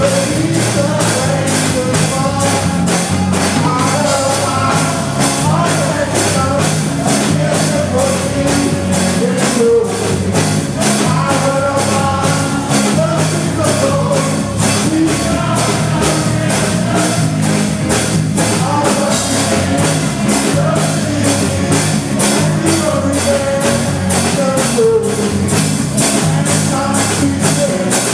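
Live gospel praise and worship music: voices singing together over a band, with drums keeping a steady beat.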